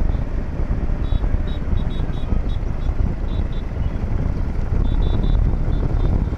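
Motorcycles running in a bike rally, a dense low rumble, with clusters of short high-pitched beeps several times over it.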